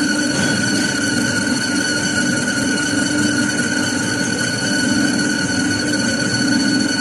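Metal lathe and workshop machinery running steadily: an even drone with constant high-pitched whining tones over it.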